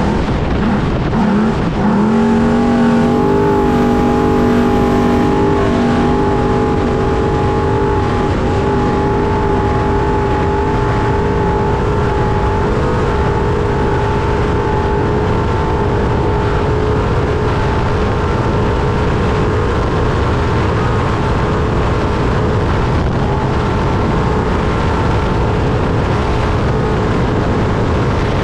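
Trophy truck's engine at racing speed, heard from onboard: its pitch climbs about two seconds in, then holds at steady high revs over a loud, constant rushing and rattling noise.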